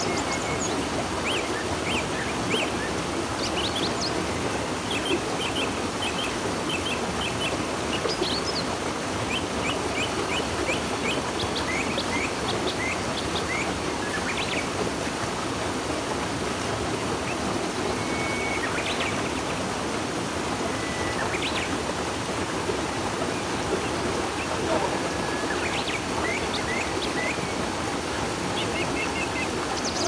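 Steady rush of river water, with birds chirping over it in many quick short calls and now and then a brief whistled note.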